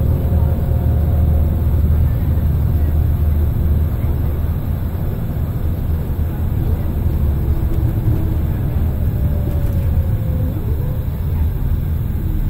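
Scania L94IB bus with its DC09 diesel engine and ZF Ecomat 5HP600 automatic gearbox, heard from inside the cabin while driving: a steady low engine drone with road noise, easing off a little about four seconds in.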